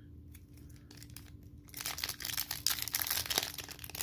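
A trading card booster pack wrapper being torn open, its crinkling and tearing starting a little before halfway through and going on as a dense, irregular crackle.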